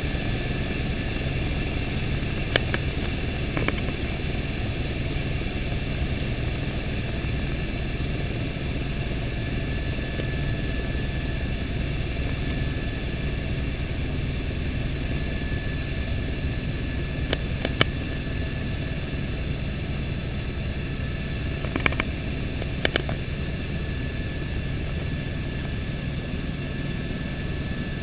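Helicopter in flight heard from inside the cabin: a steady, loud rotor and engine noise with a faint high whine over it. A few short clicks sound near the start, in the middle and later on.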